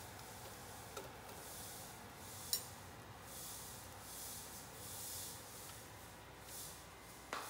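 Hot oil in an electric deep fryer sizzling faintly around frying tempura, swelling and easing in waves. A few light clicks of metal tongs against the wire fryer basket, the sharpest about two and a half seconds in.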